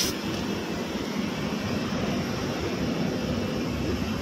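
A steady, low mechanical drone like an engine running, with a constant low hum and no breaks.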